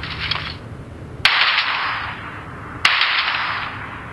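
Gunfire from a first-person shooter video game: two sharp single shots about a second and a half apart, each trailing off in a hiss, after a fainter crackle at the start.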